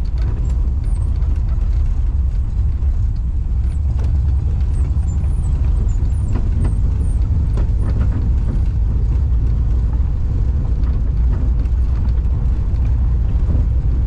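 Volkswagen Kombi van driving along a rough dirt road, heard from inside the cab: a steady low rumble of engine and tyres on the unpaved surface, with a few light knocks and rattles.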